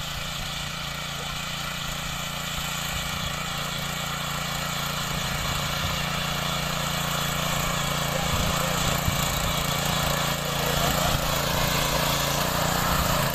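Small engine of a walk-behind mini power tiller running steadily while its rotary tines work dry soil, growing gradually louder as the machine comes closer.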